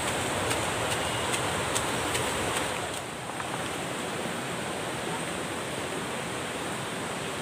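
Steady rushing of flowing river water, with a steady high hiss above it. There are a few faint clicks in the first seconds, and it gets a little quieter about three seconds in.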